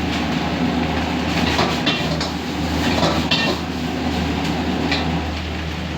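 A steady low mechanical hum with a few short, sharp metallic clanks scattered through it.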